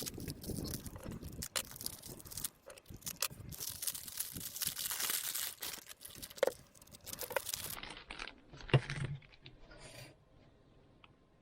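Packaging crinkling and rustling as a pocket watch is unwrapped and handled, with scattered clicks and one sharp knock about nine seconds in. It quietens near the end.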